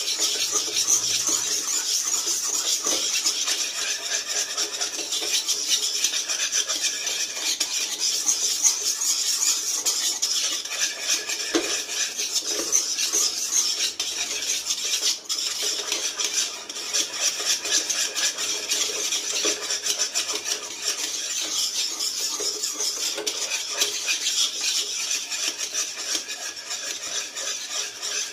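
A spatula stirring and scraping thick, reduced milk around a non-stick pan, a steady rapid rasping scrape. The milk has cooked down to a thick mass that is drying out and is kept moving so it does not burn while it turns golden.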